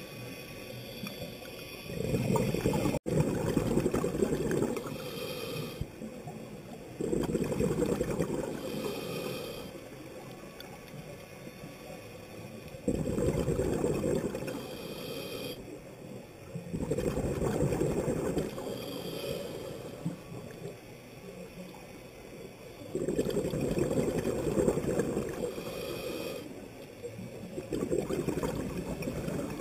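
A scuba diver breathing through a regulator, heard underwater through the camera housing: a bubbly rumble of exhaled air lasting two to three seconds, about six times, every five seconds or so, with a short hiss of inhalation in the quieter gaps between.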